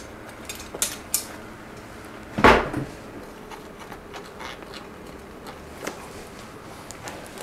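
Scattered clicks and knocks of bicycle parts being handled while the wheels are taken off, with one louder knock about two and a half seconds in.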